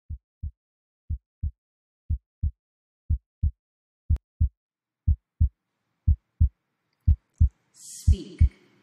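Heartbeat sound: paired low thumps, a steady lub-dub about once a second. Near the end a breathy hiss and a low held tone come in over it.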